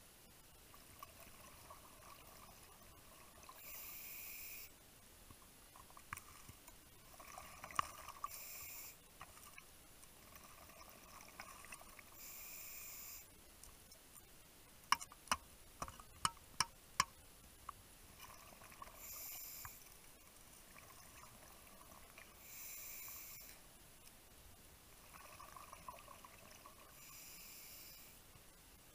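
Scuba diver breathing through a regulator underwater: a short hissing inhale about every four seconds, each followed by a longer bubbling exhale. A quick run of sharp clicks comes about halfway through.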